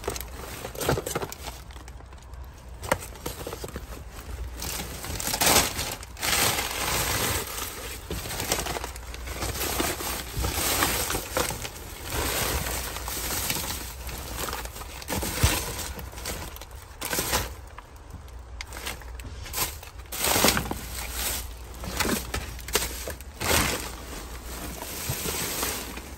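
Plastic trash bags, plastic wrap and cardboard rustling and crinkling in irregular bursts as hands rummage through garbage in a dumpster.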